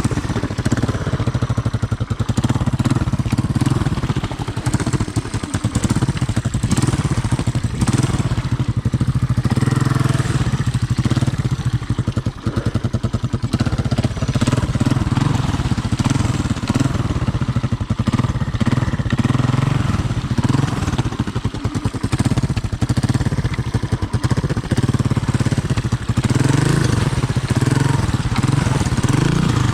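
Honda ATC 200M three-wheeler's single-cylinder four-stroke engine running steadily, its level dipping briefly about twelve seconds in.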